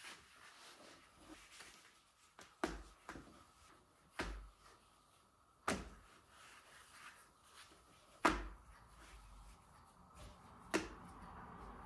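About five separate light knocks and clicks of kitchen items being handled and set down, with quiet between them.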